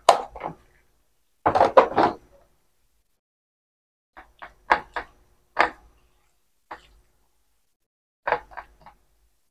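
Irregular clusters of short knocks and clatter from kitchen work, dishes and utensils being set down and handled while ground meat is prepared.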